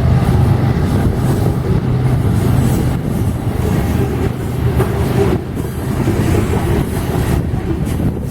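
Freight train rolling past: a steady, loud rumble of diesel locomotive and rail cars on the track, with a low engine drone that eases after a couple of seconds and a few faint clicks from the wheels.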